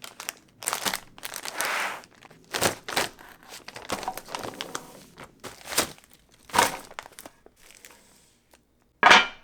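Irregular crinkling and crumpling rustles, a string of short noisy bursts with the loudest one near the end.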